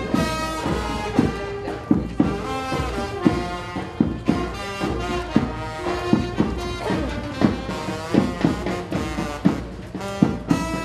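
Funeral brass band playing: horns carry a sustained melody while a drum strikes about once a second.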